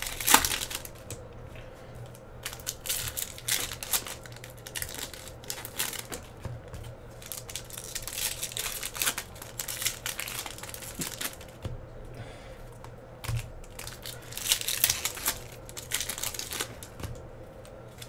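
Foil hockey-card pack wrappers crinkling and tearing open as the cards are handled, making a run of small clicks and crackles. The crinkling grows louder about 15 seconds in and again near the end.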